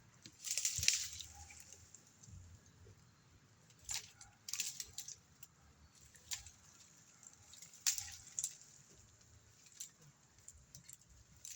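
Scattered short rustling and crackling noises, the loudest about a second in, with a few more around four, five and eight seconds in; no chainsaw is running.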